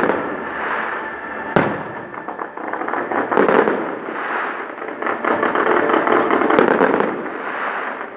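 Fireworks display: aerial shells bursting, with a sharp bang about a second and a half in, more bangs around three and a half seconds and a quick cluster of cracks near seven seconds, over steady crackling.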